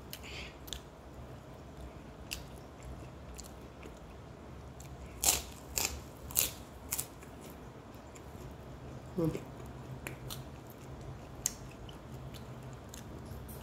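Eating with the fingers: chewing and wet mouth and lip clicks, loudest in a cluster of sharp smacks about five to seven seconds in as a handful of rice goes into the mouth. A short murmur about nine seconds in, over a steady low hum.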